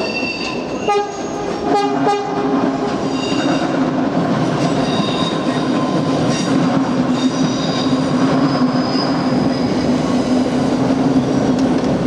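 Dutch NS electric passenger train running past close alongside the platform: a steady low drone with high whining, squealing tones from the wheels and running gear. Near the start come two short sharp sounds about a second apart.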